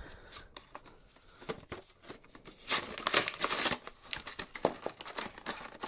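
Cardboard backing card of a toy blister pack being torn and peeled away from its plastic blister by hand, with the plastic crinkling. Irregular rustling and tearing, loudest for about a second around three seconds in.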